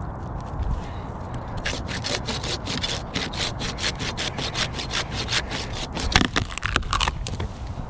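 Hand pruning saw cutting through a living conifer limb in rapid back-and-forth strokes, about four a second, starting about a second and a half in. There is a louder crack from the wood about six seconds in.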